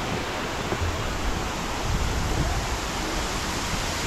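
Steady, even rush of fast-flowing water from a mountain stream and waterfall.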